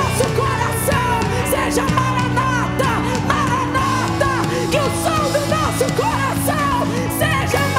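Live worship band playing: several voices singing over a drum kit with repeated cymbal crashes and guitars.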